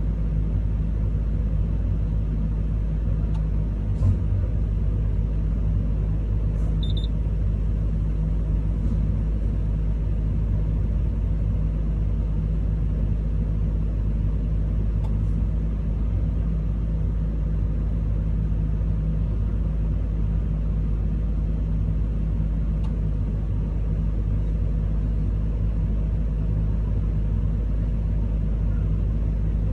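Komatsu PC210 excavator's diesel engine idling steadily, heard from inside the cab, with a single light knock about four seconds in.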